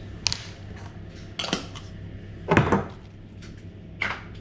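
Kitchen utensils and containers handled while spices are measured into a cake mixture: four separate clinks and knocks. The loudest is a heavier clunk about two and a half seconds in.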